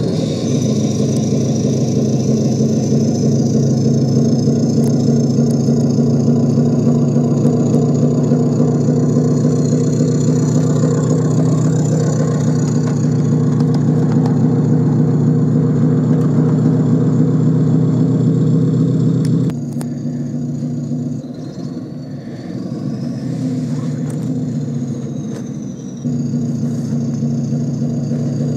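Ride-on miniature model of a Class 20 diesel locomotive running along the track, a steady engine drone with a thin high whine over it. The drone drops back about 19 seconds in and picks up again about 26 seconds in.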